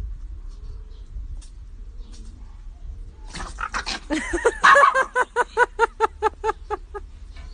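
Dogs play-fighting: low growling, then from about three seconds in a quick run of short, high yapping barks, about four a second.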